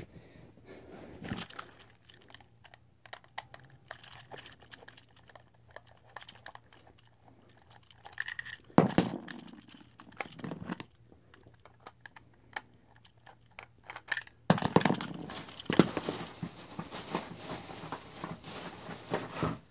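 Hands handling a plastic robot toy, with scattered clicks and knocks and two louder knocks around the middle. About three-quarters of the way through, a steadier stretch of rustling and crinkling begins.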